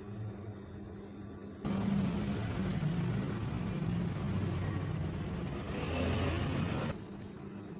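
Walking-foot sewing machine running at speed for about five seconds, starting and stopping abruptly, over a steady low hum.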